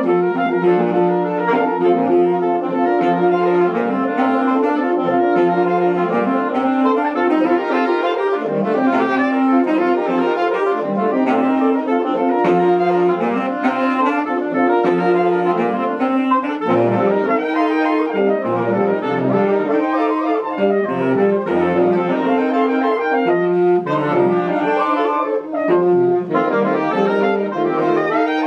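Saxophone quartet playing together, with quick repeated notes in the upper parts over held low notes, continuous with no pauses.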